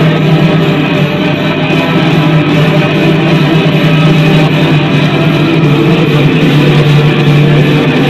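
Loud rock music with guitar.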